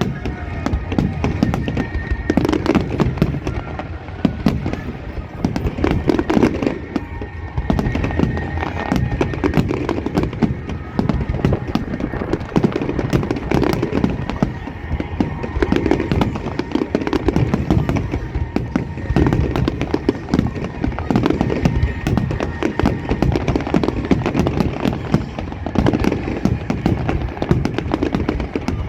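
Fireworks display: many bangs and crackles in rapid succession, with no break, and heavier low booms every second or two.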